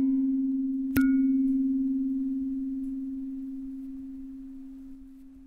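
Low bell-like tone from the closing music, struck again about a second in and left ringing, fading slowly away.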